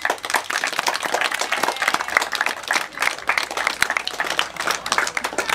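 Crowd applauding: many hands clapping at once, quick and uneven.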